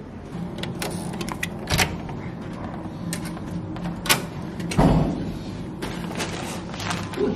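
A door being handled and walked through: a few sharp clicks and knocks, one of them duller and heavier about five seconds in, over a steady low hum.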